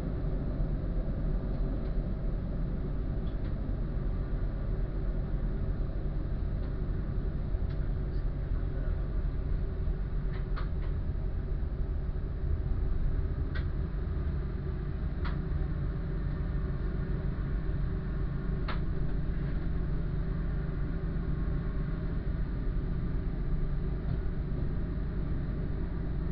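Diesel train running along the track, heard from the front of the train: a steady low engine drone and rumble, its note shifting a little past halfway. Four short sharp clicks come through in the middle.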